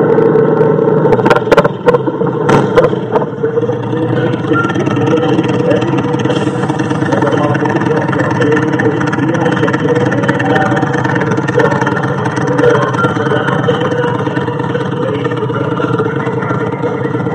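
Custom motorcycle engine running steadily, with several sharp cracks in the first few seconds.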